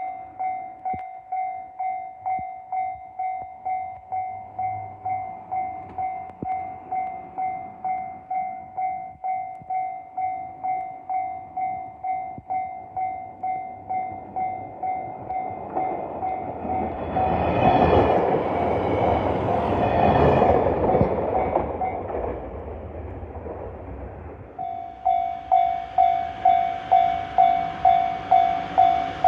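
Level-crossing warning bell dinging steadily about twice a second while a JR Kyushu YC1 series railcar runs over the crossing, the train loudest about two-thirds of the way through. The bell stops briefly as the train clears, then starts again, louder.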